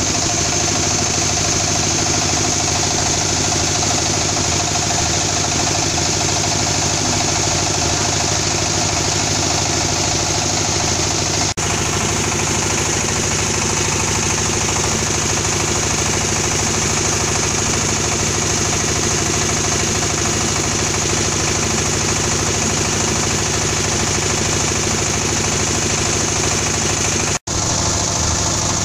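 Small single-cylinder diesel engine running at a steady speed, belt-driving a charcoal briquette extruder press that pushes out square briquette bars. The sound cuts out for an instant twice.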